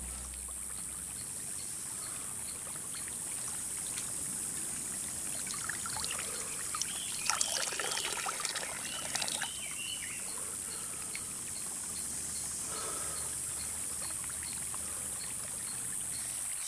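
Shallow stream trickling steadily over stones, with splashing and dripping about seven to ten seconds in as water is scooped up in cupped hands and splashed on a face.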